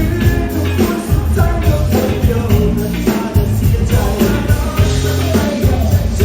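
Live band playing an upbeat pop-rock song with a steady beat and a voice singing over it.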